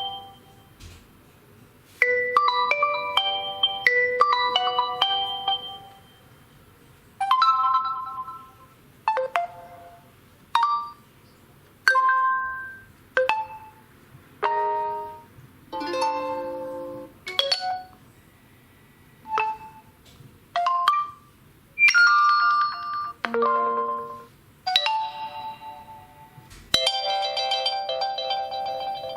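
Realme C3 smartphone stock ringtones played one after another: a string of about fourteen short electronic chimes and melodic jingles, each a second or two long, some single notes and some quick runs, with brief pauses between them. A longer chiming melody starts a little before the end.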